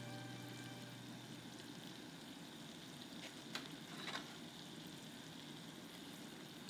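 Donuts deep-frying in a pan of hot oil: a faint, steady sizzle, with two light clicks about three and a half and four seconds in.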